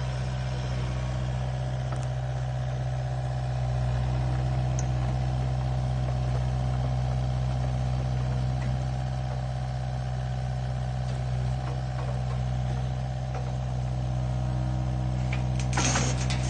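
An engine running at a steady speed, holding one pitch. Near the end a loose rattling clatter starts over it.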